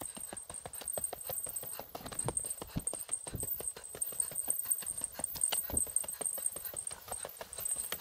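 A hiker's footsteps crunching steadily along a mountain access road at a brisk walking pace.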